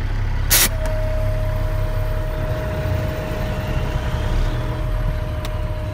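Tri-axle dump truck's diesel engine running in the cab as the truck pulls forward, with a short sharp burst of air about half a second in as the parking brake knob is pushed in to release the brakes. From just after it, a single steady high tone sounds.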